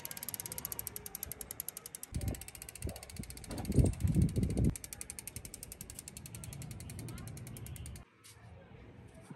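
Rear freewheel of a geared bicycle ticking rapidly and evenly as the rear wheel spins freely: the pawls clicking, until the ticking stops abruptly near the end. Bursts of low rumble sound over it in the middle.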